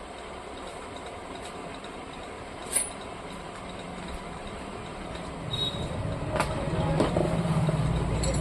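Steady background noise with a single sharp click about three seconds in, then a motor vehicle rumbling closer and growing louder toward the end.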